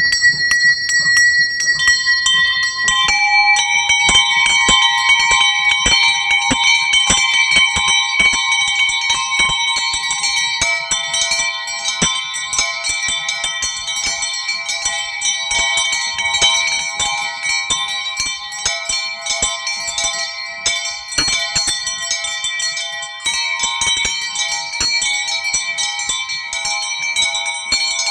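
Church tower bells being rung, starting with the smallest, highest bell. Progressively larger, lower bells join in about two, three and eleven seconds in, their rapid strikes overlapping into one continuous peal.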